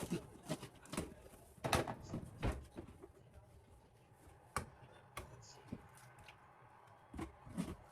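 Short, irregular clicks and light knocks of kitchen items being handled on a counter, about nine in all, the loudest a cluster about two seconds in.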